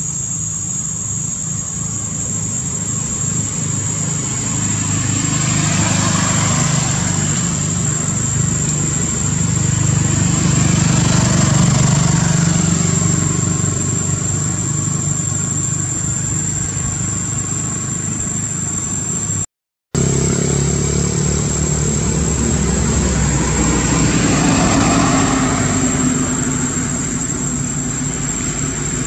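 Passing motor traffic: engine noise over a steady low hum, swelling and fading three times as vehicles go by, with a thin steady high whine above it. The sound drops out for a moment about two-thirds of the way through.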